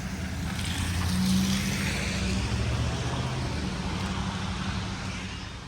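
A motor vehicle's engine running as it passes along a street, with road noise that grows loudest about a second in and then fades away.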